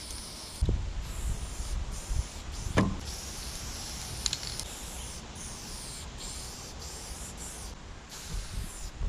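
Aerosol spray-paint can hissing in runs of a second or so with brief breaks between them, over a low rumble. A sharp knock comes about three seconds in.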